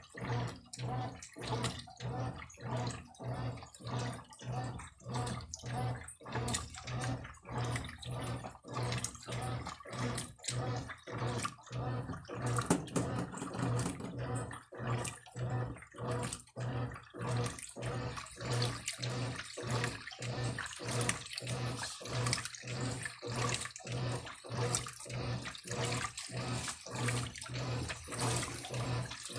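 Brastemp Eletrônica washing machine running its wash cycle, with a motor hum and water sloshing in an even rhythm of about one and a half strokes a second. From about eighteen seconds in, a louder hiss of water joins.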